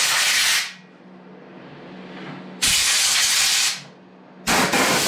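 Compressed air hissing from an air-hose nozzle in three short blasts, blowing dust off a chainsaw engine around the spark plug area. The first blast stops just under a second in, the second lasts about a second in the middle, and the third begins near the end.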